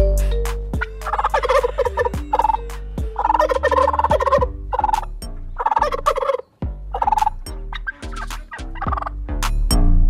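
Turkey tom gobbling: three long rattling gobbles in the first seven seconds, with shorter ones between and after.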